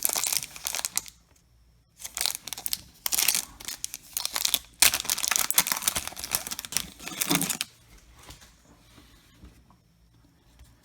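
Plastic wrapper of a baseball card pack being torn open and crinkled, in two spells of rustling, the second lasting several seconds, then it goes quiet near the end.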